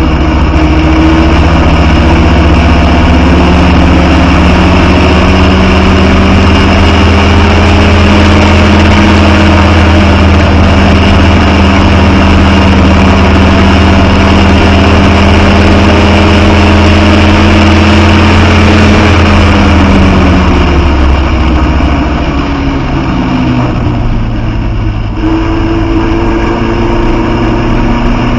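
Original Austin 7 side-valve four-cylinder engine at racing speed, heard from inside the car: it runs hard with its pitch slowly rising for about twenty seconds, then drops sharply as the throttle comes off, dips briefly a few seconds later and settles at a lower, steady note.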